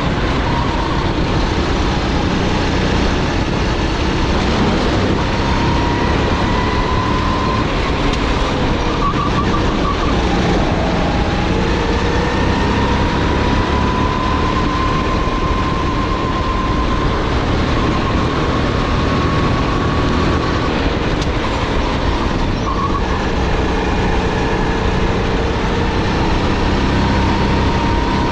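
Sodi GT5R rental kart's 270 cc, 9 hp single-cylinder four-stroke engine running hard at racing speed, heard onboard over a dense rushing noise. Its pitch climbs slowly along the straights and drops back a couple of times as the kart slows for corners.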